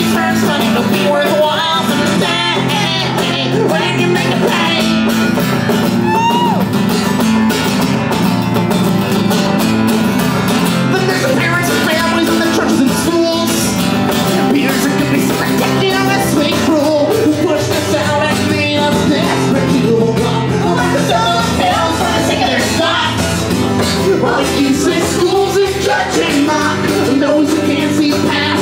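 Live acoustic duo playing: banjo and acoustic guitar with singing.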